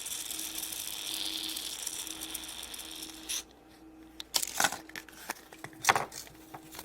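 Small plastic toy motorbike from a Kinder Surprise egg being handled: a continuous ratcheting rattle for about three seconds, then a few separate sharp plastic clicks.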